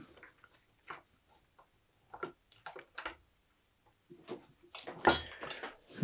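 Scattered faint clicks and light taps of hands handling a thin wire and small tools at a workbench, a little denser and louder about five seconds in.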